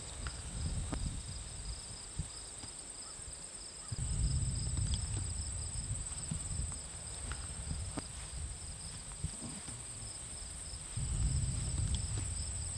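Insects trilling in the orchard: a steady high buzz with a faster pulsing trill just below it. Low rumbling noise on the microphone swells about four seconds in and again near the end, with a few light clicks.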